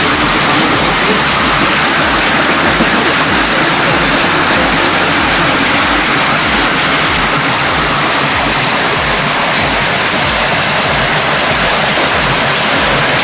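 Small waterfall spilling down a rock face into a pool: a steady rush of falling water.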